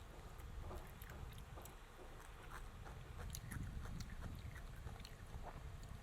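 Close-miked eating sounds: chewing and biting, with many small wet clicks and crackles from the mouth.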